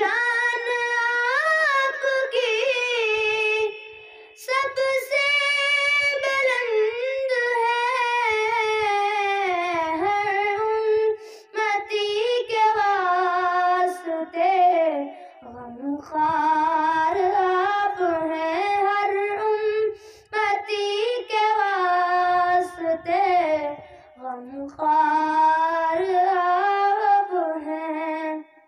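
A boy singing a naat, an unaccompanied devotional poem in praise of the Prophet, into a handheld microphone. His high voice carries long, ornamented, wavering phrases, broken by short breaths.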